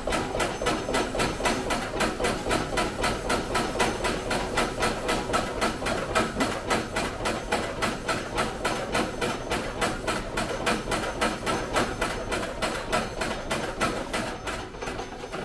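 Rice huller (Kaneko KMP400JX husker) running, with a steady rapid knocking about four to five times a second over a hissing whirr; it dies down near the end.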